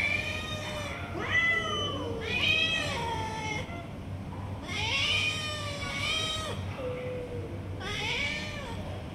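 Domestic cats meowing up at a person, begging for food: about six meows that rise and fall in pitch, one drawn out near the middle.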